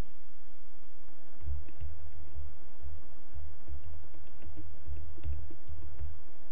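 Computer keyboard typing: an irregular run of keystrokes starting about a second and a half in.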